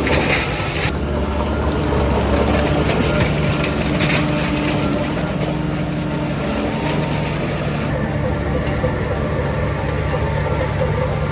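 Heavy diesel earthmoving engine running steadily, with two short bursts of hiss, one near the start and one about four seconds in.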